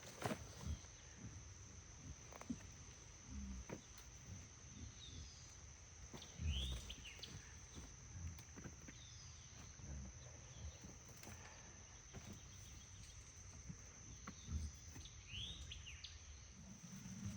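A steady, high-pitched insect trill, typical of crickets, runs throughout, with a few short bird chirps at intervals. Faint soft knocks and rustles of soil and potatoes being handled come and go underneath.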